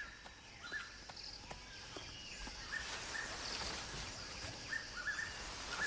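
Forest ambience with a bird repeating short rising chirps, often two in quick succession, over a faint steady hiss, with a few light taps.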